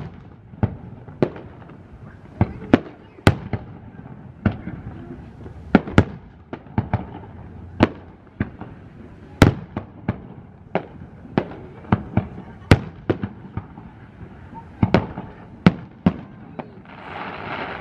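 Aerial fireworks display: shells bursting in quick succession, a string of sharp bangs about one or two a second at irregular spacing, with a short rush of hissing noise near the end.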